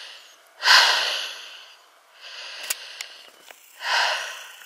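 A hiker breathing hard close to the microphone on an uphill climb: two loud breaths about three seconds apart, with a quieter breath between them. A couple of faint clicks come near the middle.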